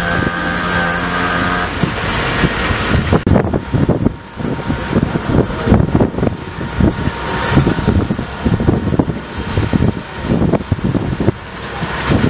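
Fire engine running with a steady engine note. About three seconds in the sound changes to uneven low rumbling and knocking, with a faint steady high whine underneath.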